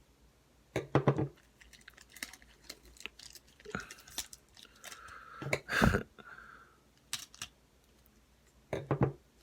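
A sealed baseball card pack being carefully cut open by hand: scattered small clicks, crinkles and scrapes of the wrapper and cutting, with a few louder handling noises about a second in, around six seconds in and near the end.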